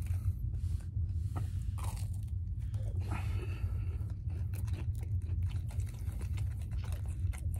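Close-up chewing of French toast sticks: soft crunching and many small wet mouth clicks, over a steady low hum.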